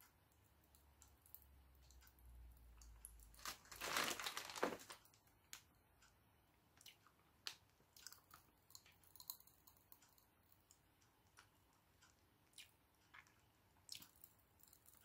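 Faint crackling of fizzy popping candy in a person's mouth: scattered tiny pops throughout, with a short louder burst of chewing about four seconds in.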